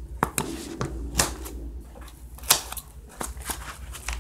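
Scissors snipping through the foam padding and mesh cover of a football shoulder-pad cushion, a series of sharp, irregularly spaced snips as a big chunk is cut out.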